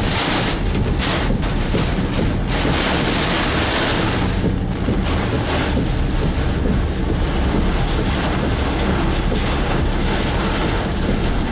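Heavy rain and strong wind beating on a car, heard from inside the cabin: a loud, steady rushing with a deep rumble, surging in gusts during the first few seconds.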